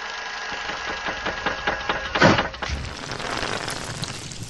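Old-film intro sound effect: steady hiss with a faint hum and a rapid run of crackling clicks, like film running through a projector. About two seconds in comes one loud sweeping hit, followed by a fading noise.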